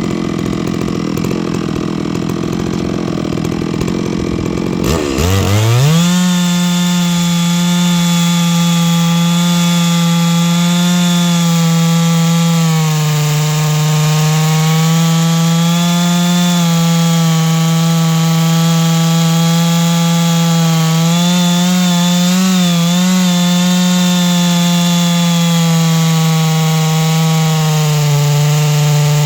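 Chainsaw mill cutting through a large black oak log. For the first five seconds the saw runs rough and low. Then its engine revs up sharply and holds full throttle at a steady pitch, sagging slightly a few times under the load of the cut.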